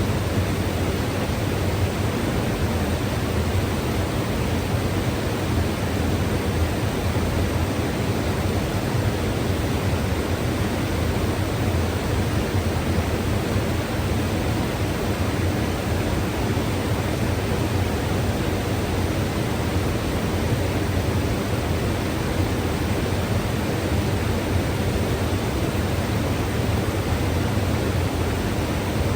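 Mountain river rushing: a steady, unbroken wash of flowing water, strongest in the low rumble.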